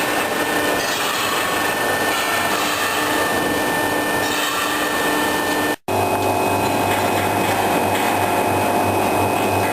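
Horizontal H-beam welding machine running with a steady mechanical noise. It cuts off abruptly about six seconds in, then resumes with a stronger low steady hum.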